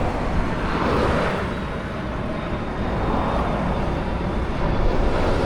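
Cars passing at speed on a busy road: a steady rush of traffic noise that swells as vehicles go by.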